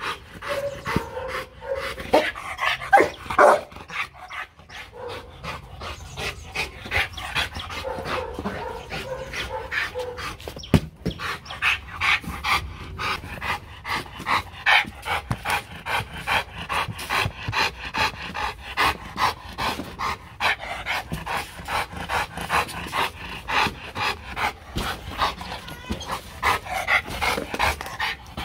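Adult Rottweiler panting quickly and rhythmically with its tongue out. A few louder sounds come about two to three seconds in.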